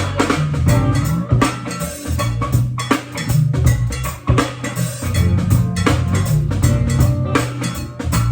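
A band playing, with a drum kit beating out a steady groove over a moving bass line.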